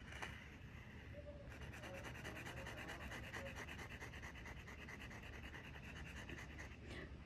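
Stick of sidewalk chalk rubbed rapidly back and forth on rough pavement, a quick run of faint scratchy strokes as an area is coloured in, starting about a second and a half in.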